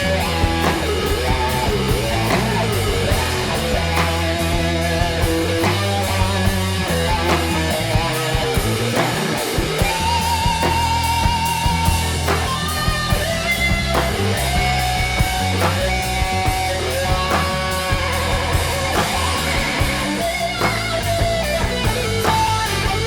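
Rock trio playing an instrumental passage: electric guitar lead with bent, wavering notes over bass guitar and a drum kit keeping a steady beat.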